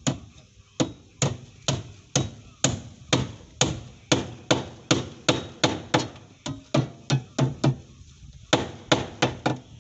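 Hand hammer striking the timber-braced plywood formwork of a foundation footing: a steady run of sharp blows, about two a second, each with a short ring, pausing briefly about eight seconds in before quicker blows resume.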